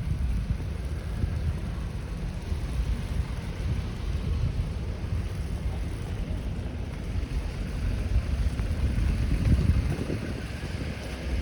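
Blizzard wind buffeting the microphone: a steady low rumble that swells a little near the end.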